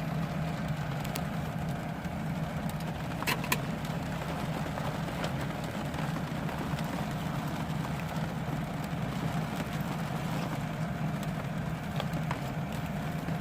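Van air conditioner running with a steady hum, rain falling on the van, and one sharp tick about three seconds in.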